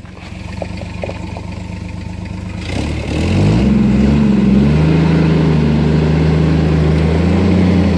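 Jeep Wrangler YJ engine pulling the jeep slowly over rocks: a low hum with a few small clicks about a second in, then the engine revs up just under three seconds in and holds a steady, louder note under load.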